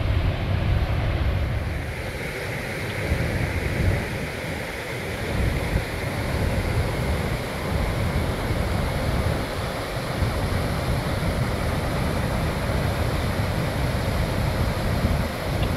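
Steady rushing of the Niagara River's rapids and falls, with wind buffeting the microphone in uneven low gusts.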